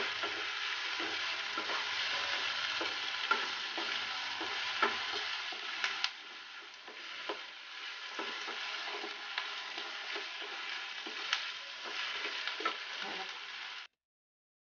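Chopped onions and curry leaves sautéing in oil in a nonstick kadai: a steady sizzle with the scrape and tap of a wooden spatula stirring them. The sound cuts off suddenly near the end.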